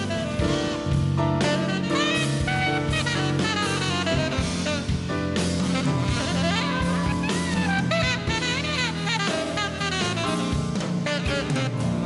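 Live jazz band playing: a horn solos in quick runs with bent, sliding notes over drum kit and bass.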